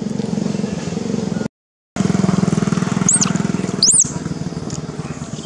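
A small engine running steadily with a low pulsing hum, cutting out for about half a second a third of the way in. Two short high squeaks, each rising then falling, come about a second apart in the middle, the second the loudest.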